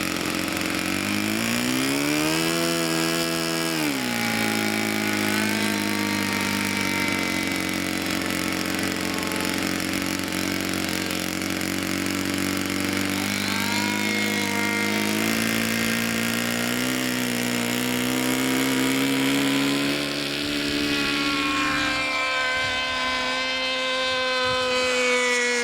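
Engine and propeller of a Seagull Spacewalker radio-control model plane in flight, its pitch swinging up and down. The pitch climbs about a second in and drops back a few seconds later, then falls again near the end.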